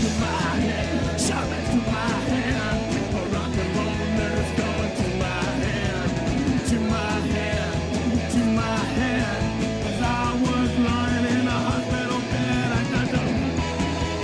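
Punk rock song playing, with electric guitars, bass, drums and a singing voice.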